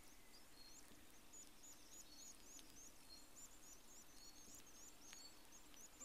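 Faint, rapid, high-pitched cheeping of European goldfinch nestlings begging for food at the nest, about four short calls a second.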